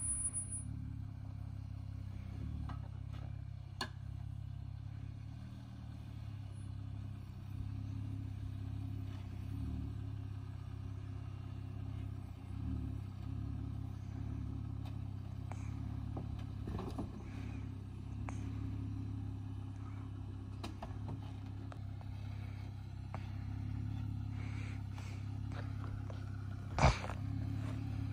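Jeep Wrangler Willys engine running at low, steady revs while crawling down a rocky trail. A sharp knock sounds near the end, with a few lighter clicks earlier.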